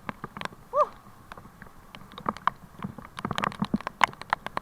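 Heavy rain: raindrops striking close to the microphone as irregular, sharp taps. A short squeak-like tone sounds about a second in.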